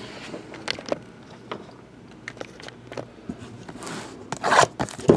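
Scattered light clicks and taps of hands handling a box, then, about four seconds in, a short crinkle of plastic shrink wrap as a hand grabs the wrapped box.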